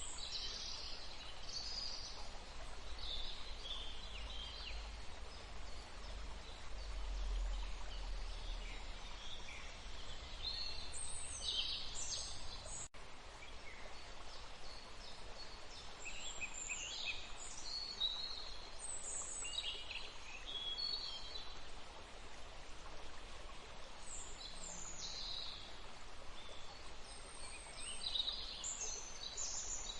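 Steady rush of flowing water with small birds chirping and calling on and off over it. The sound drops out for an instant about 13 seconds in.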